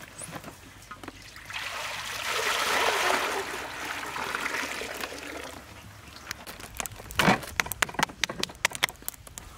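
Water pouring from a large plastic water jug into a big metal wok, a splashing rush that swells and fades over about four seconds. Then a run of sharp knocks and clicks as a slab of pork belly is handled on a wooden table.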